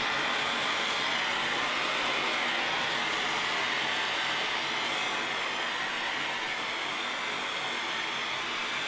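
MAP gas hand torch burning with a steady hiss of its blue flame.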